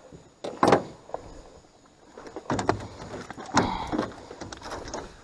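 A few irregular thumps and knocks, with lighter clatter between, from a landed bass flopping against the boat while it is being unhooked.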